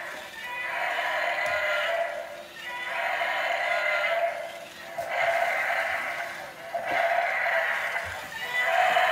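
Radio-controlled toy dragon playing its electronic creature-call sound effect through a small built-in speaker, over and over, one call about every two seconds.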